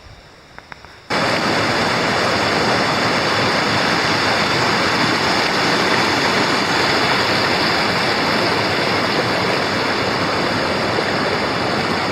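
Rushing water of a mountain stream, a loud steady rush that starts abruptly about a second in; before it, a few faint clicks.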